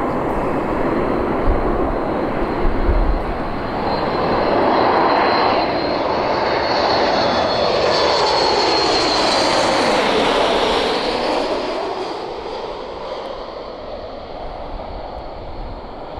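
Boeing 737 MAX jet airliner on landing approach, gear down, passing low overhead: the engines' rushing noise and a high fan whine swell, peak about ten seconds in as the pitch sweeps downward, then fade as it moves away.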